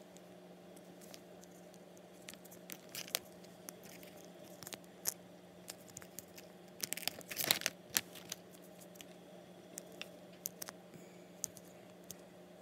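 Thin clear plastic candy-mold trays handled and pressed together, giving scattered small clicks and plastic crackles, with a louder burst of crackling about seven seconds in.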